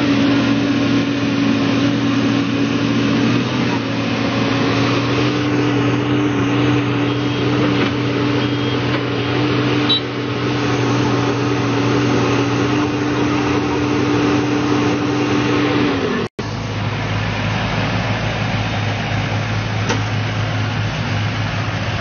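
Heavy construction-machine diesel engine running at a steady pitch. About sixteen seconds in the sound cuts out for an instant and is replaced by a lower, steady engine drone.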